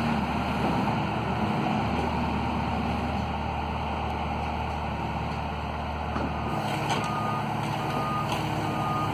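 Diesel engine of a 2005 Daewoo Solar 75-V mini excavator running steadily while the boom and bucket are worked, its note shifting a couple of times as the hydraulic load changes. Over the last third a backup alarm beeps at an even pace.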